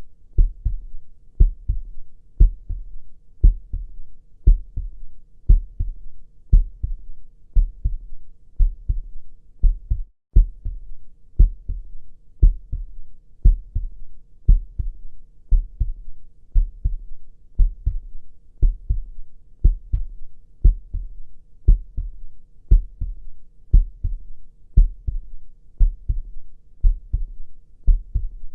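Recorded human heartbeat playing steadily: low double thumps (lub-dub) at about one beat a second, with a brief break about ten seconds in.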